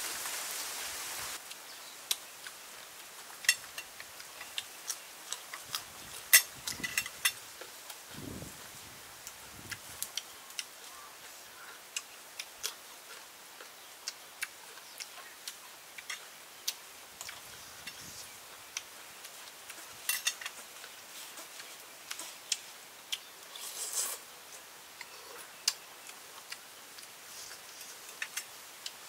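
Irregular sharp clicks of cooked snail shells against a plate and against each other, with a few short soft eating sounds, as the snails are picked up and eaten by hand. A steady hiss cuts off about a second in.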